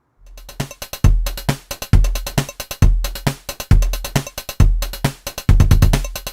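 Electronic outro music starting up, with a heavy drum-machine kick about once a second under faster beats.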